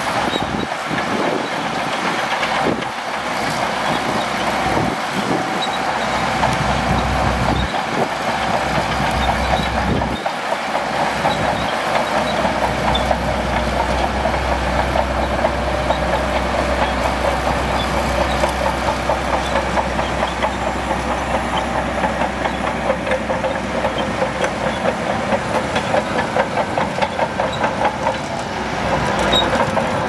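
Shantui DH17C2 crawler bulldozer working: its diesel engine running with a fast, steady rattle of the steel tracks, and a deep low rumble that comes in about ten seconds in and holds.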